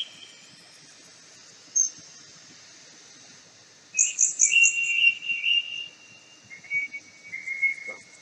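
Birdsong over a steady high insect chorus: a short high chirp about two seconds in, then a quick run of notes and longer whistled notes from about four seconds on.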